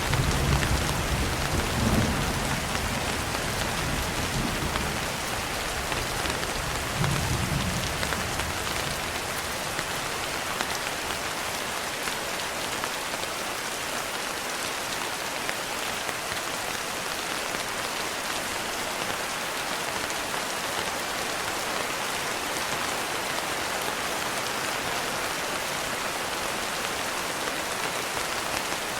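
Steady heavy rain. A low thunder rumble sounds in the first several seconds and dies away.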